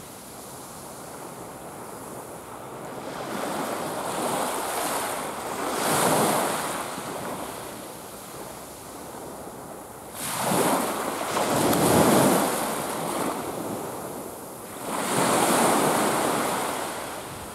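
Small waves washing onto a sandy beach, a rushing noise that swells and fades several times and is loudest about twelve seconds in, with some wind on the microphone.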